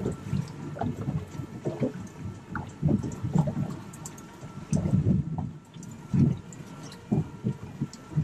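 Water slapping and gurgling against a boat's hull in irregular low splashes.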